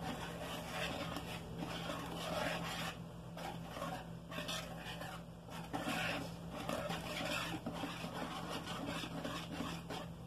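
Wire whisk stirring runny corn-cake batter in a bowl: repeated wet swishing and scraping strokes as the wires rub through the batter and along the bowl.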